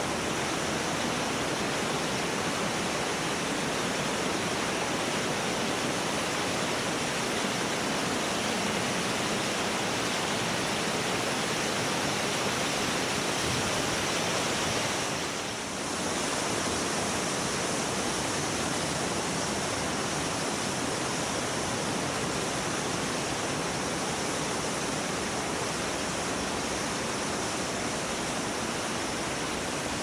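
Günster Wasserfall, a mountain waterfall cascading down a rocky gorge: a steady, dense rush of falling water, briefly dipping about halfway through.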